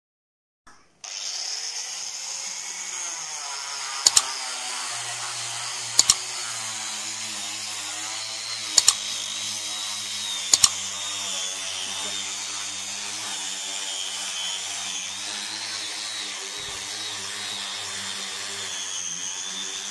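Electric angle grinder with a sanding disc running against a cured epoxy and wood tabletop to level it, starting about a second in with a steady whine that wavers a little in pitch. Four sharp double clicks cut across it.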